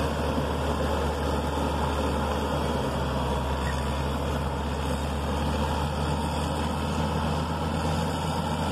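Caterpillar 120K motor grader's diesel engine running steadily under load while its blade cuts the roadside bank, a constant low hum.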